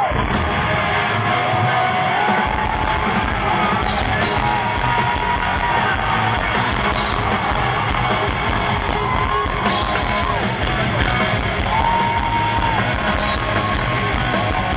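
Rock band playing live at full volume through an arena PA, with electric guitars, bass and drums, heard from among the audience. The deep bass and kick drum come in about two seconds in.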